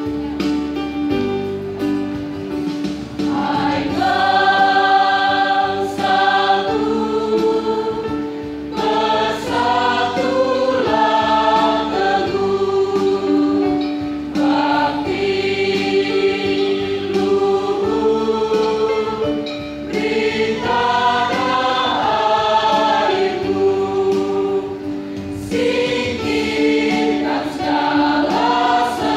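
Large school choir singing in chorus, with a held keyboard note sustained beneath the voices.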